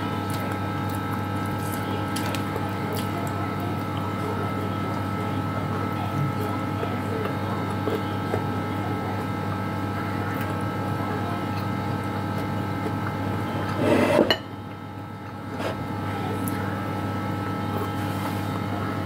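Steady mechanical hum made of several steady tones, with faint clicks and taps of fingers picking fish off a plate. About 14 seconds in there is a short, louder rustle. The hum then drops out for about a second and comes back.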